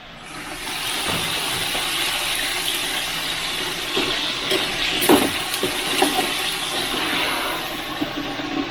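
Hot oil sizzling steadily in a deep fryer as the basket of fried chicken is lifted out, with a few light knocks of the metal basket and lid.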